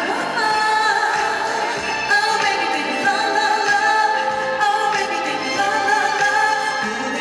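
Female vocalist singing a Korean pop ballad live into a handheld microphone, with sustained notes over instrumental accompaniment.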